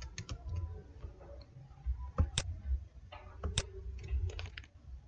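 Scattered sharp clicks of a computer mouse and keyboard keys, a few single clicks spaced a second or more apart, over a faint low rumble.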